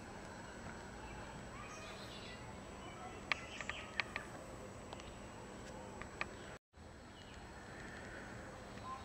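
Faint woodland ambience with distant bird calls. A cluster of sharp clicks comes about three to four seconds in, with a few more after it, and the sound drops out briefly a little past halfway.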